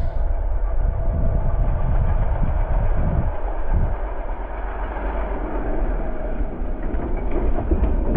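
Pickup truck engine running under load as it spins its wheels in snow, a low rumble that swells and eases.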